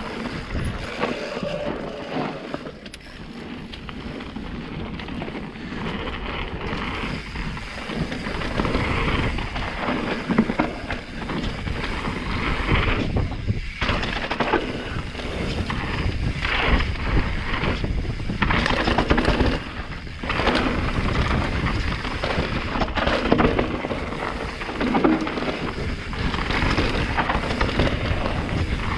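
Santa Cruz Megatower full-suspension mountain bike descending a rough trail at speed: tyres rolling and skidding over dirt and rock, with frequent knocks and rattles from the frame, chain and suspension over impacts, and a low rumble of wind on the action camera's microphone.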